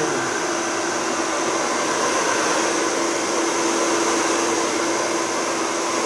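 Choaba 2800 2000-watt hair dryer running steadily at its higher fan speed: a rush of air with a steady hum.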